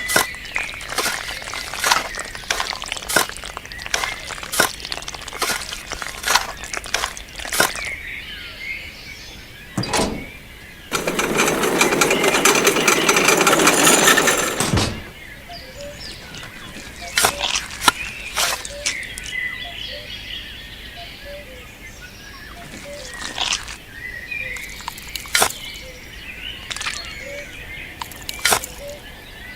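Repeated sharp taps and knocks, with a few seconds of loud, dense rattling noise that starts about eleven seconds in and cuts off suddenly about four seconds later; birds chirp faintly in the background.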